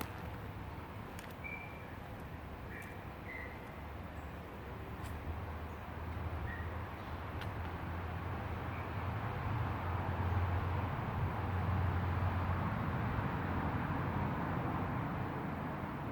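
River water flowing steadily, swelling somewhat in the middle, under a low rumble. A few short bird chirps come in the first several seconds.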